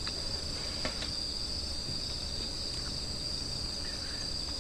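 Crickets trilling in a steady, high-pitched chorus, with a few faint clicks over it.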